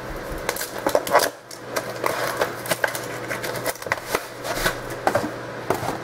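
Handling noise: crinkling of packaging with a run of sharp clicks and taps, as packs and cards are handled and opened.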